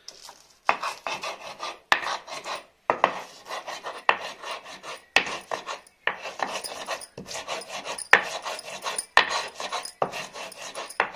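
Stone muller scraped and ground back and forth on a sil batta grinding stone, crushing green chillies, garlic and salt: a rasping stone-on-stone scrape about once a second.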